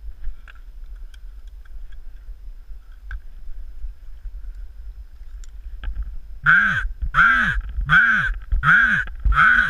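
Five loud, hoarse raven caws in quick succession, each rising then falling in pitch, starting about two-thirds of the way in. A low wind rumble on the microphone runs underneath.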